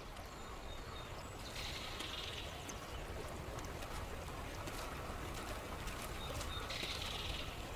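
Outdoor nature ambience: a steady low rumble with a faint high bird call, and two brief hissing washes, one about a second and a half in and one near the end.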